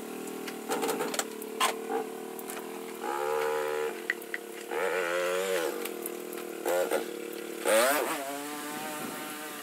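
Small ATV engine running as the quad drives past, revving up and down several times, with the loudest rev near the end.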